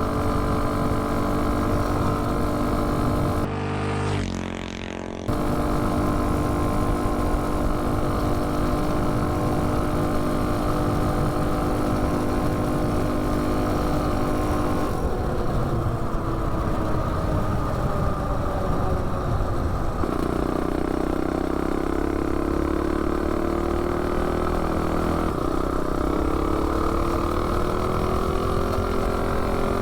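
Predator 212 single-cylinder engine on a minibike, with a header pipe, running hard at high revs during a top-speed run. The pitch holds steady at first, with a brief dip in loudness about four seconds in. After about fifteen seconds it sags, then from about twenty seconds it climbs slowly again.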